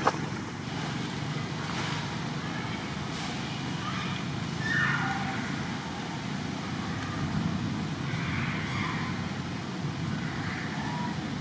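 Steady low rumble of outdoor background noise, like distant road traffic. A sharp click comes right at the start, and a brief falling call is heard about five seconds in.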